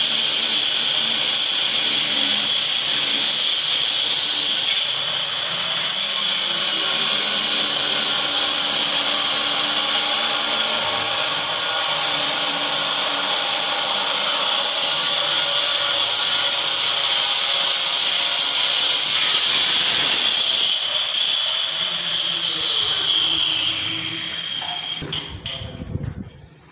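Handheld electric power tool running continuously against the wall tile, its motor whine wavering in pitch under load over a steady hiss. It winds down and stops a few seconds before the end.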